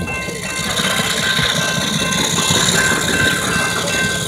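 Diesel freight locomotive approaching a level crossing, its engine giving a steady rumble with a broad hiss above it. Several steady high-pitched tones sound alongside throughout.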